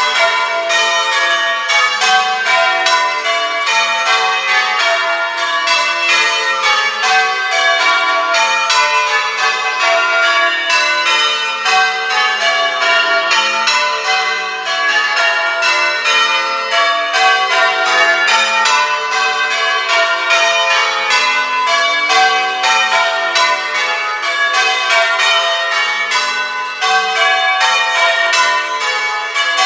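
Church tower bells being change-rung: a steady, evenly paced run of strikes, with the bells sounding one after another in shifting order.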